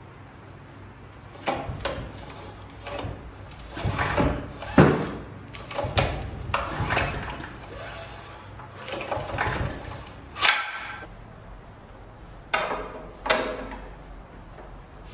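Recoil starter of a Honda GX120 engine pulled by hand again and again, each pull a short scraping, ratcheting whirr as the cord runs out and the engine turns over. The engine never fires or keeps running.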